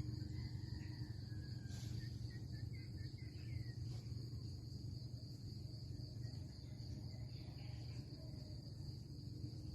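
Steady high-pitched insect chirring, cricket-like, over a low steady rumble, with a few faint bird chirps in the first few seconds.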